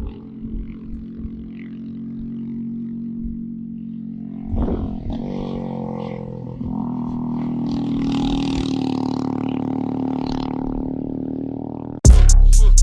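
Kawasaki Versys 650 motorcycle's parallel-twin engine running at a steady low speed, with a short noisy burst about four and a half seconds in, then growing a little louder and higher for a few seconds. Loud music cuts in near the end.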